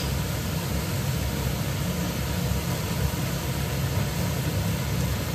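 Gas stove burners running on a high flame: a steady low rush with a hiss over it.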